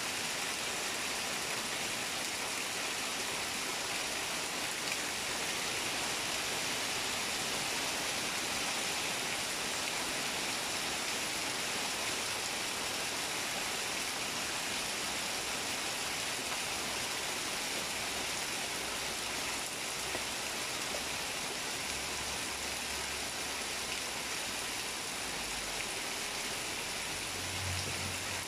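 Steady rain falling on leaves and a house roof, with runoff dripping from the eaves: an even hiss of water. A faint low hum comes in near the end.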